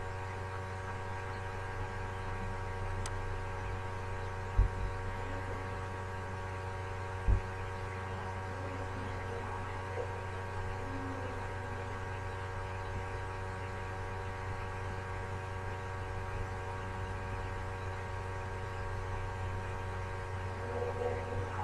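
Steady electrical hum, made of several constant tones with the strongest low down, carried through a video-call audio feed. Two short, dull low thumps come about four and a half and seven seconds in.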